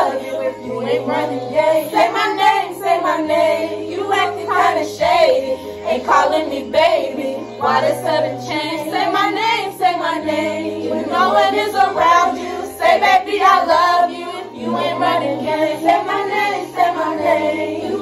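A song with a sung vocal line over a bass line that steps to a new note every second or two.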